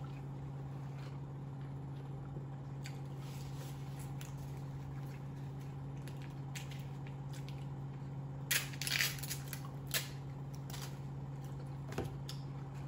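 Eating and food-packaging sounds: a few short crinkles and crunches from handling paper wrappers and ketchup packets, mostly in the second half, over a steady low hum.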